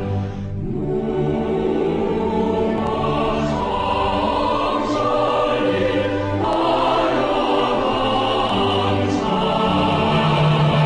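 Choral and orchestral music: a choir singing sustained chords over an orchestra, changing to a new chord about six and a half seconds in.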